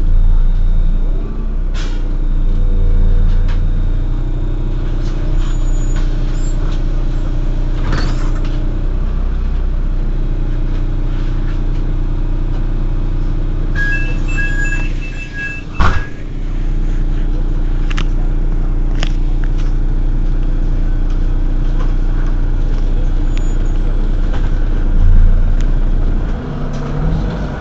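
Heuliez GX 127 city bus running, its diesel engine humming steadily with scattered knocks and rattles. About halfway through, a short electronic beeping is followed by a sharp thud.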